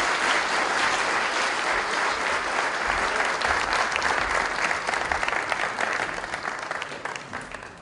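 Audience applauding after a speech, a dense clatter of many clapping hands that dies away over the last couple of seconds.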